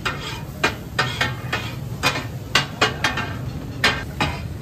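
Metal spatulas clanging on a steel tawa griddle in the chopping of fish katakat: about a dozen sharp, ringing strikes at an uneven two to three a second, over a steady low hum.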